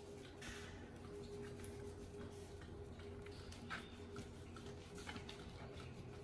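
Faint wet handling sounds and small scattered clicks as hands wash a baby monkey's bottom, over a steady low hum.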